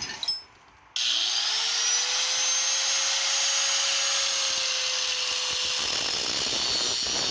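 A small electric motor, such as a power tool's, starts suddenly about a second in. It rises quickly in pitch to full speed, then runs steadily with a high whine.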